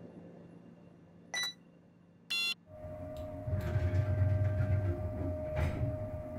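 Glass-front bottled-drink vending machine: two short electronic beeps from its keypad, then its delivery mechanism starts up and runs with a steady hum over a low rumble, growing louder.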